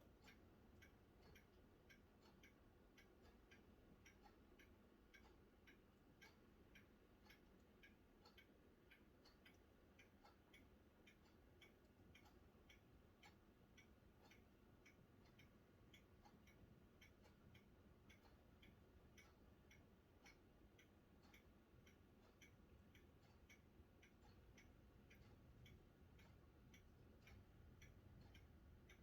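Very faint, regular ticking, about three ticks a second, over near silence.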